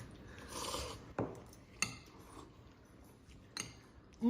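A few light clicks and taps of utensils against a dish, with soft sounds of someone eating noodles.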